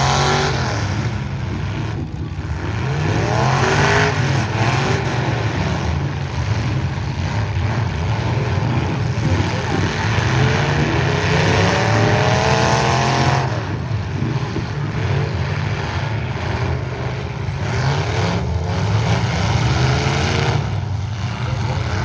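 Engines of several stock pickup trucks in a demolition derby heat running hard, revving up again and again in rising pulls over a constant engine drone.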